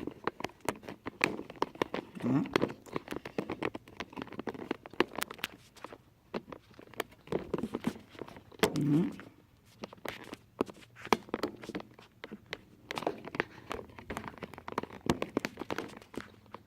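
Handling noise from a camera being moved and set up: dense irregular clicks, knocks and rustles close to the microphone. Two brief low voice-like sounds come about two and nine seconds in.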